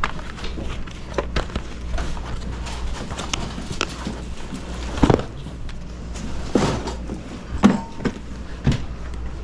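Cardboard LP record jackets flipped through one after another, a run of light taps and slaps with a few louder knocks in the second half, over a steady low hum.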